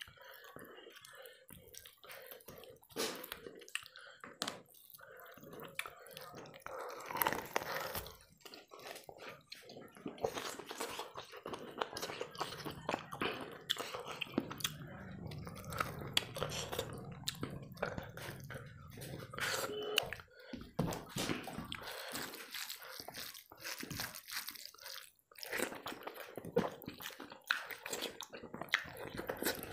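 Close-miked eating by hand: wet squelching of rice and curry worked with the fingers, and chewing with many small wet smacks as curried mutton head and rice are eaten.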